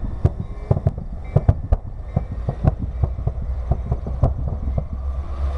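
Aerial fireworks going off: a rapid, irregular series of sharp bangs and pops, several a second.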